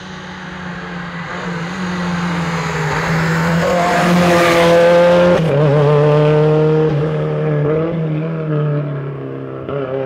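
Rally car driving hard past on a tarmac stage: the engine grows louder and rises in pitch as it approaches, drops sharply at a gear change about five seconds in, then keeps revving as it fades away down the road.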